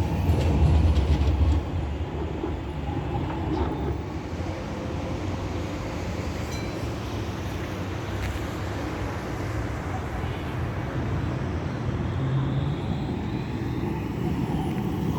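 A city tram moving along street track. A loud low hum for about the first second and a half gives way to a steadier, quieter rumble.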